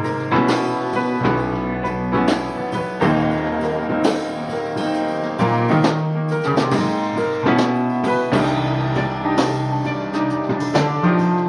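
Band music from a demo recording: a drum kit keeping a steady beat under sustained chords.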